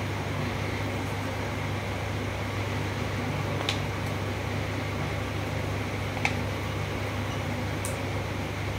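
A running fan hums and hisses steadily, with three faint light ticks spaced a couple of seconds apart.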